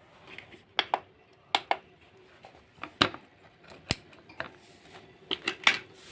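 A series of sharp, irregular clicks and clacks of hard objects being handled and knocked together, about a dozen in six seconds, some in quick pairs.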